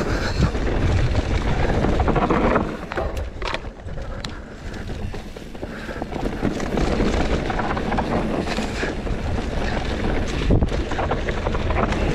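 Mountain bike riding down a dirt singletrack: tyre noise on the dirt and the bike clattering over bumps, with wind buffeting the microphone. It quietens for a few seconds about three seconds in, with a few sharp knocks.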